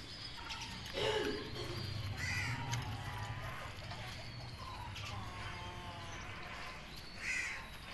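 Young chickens feeding from a bowl, giving a few short harsh calls: a low falling squawk about a second in, and higher calls a second later and near the end.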